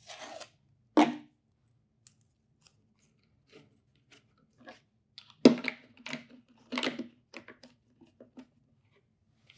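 Plastic spray bottles and sticker labels being handled at a bench: scattered sharp clicks and knocks with crinkly rustling, busiest about five to seven seconds in.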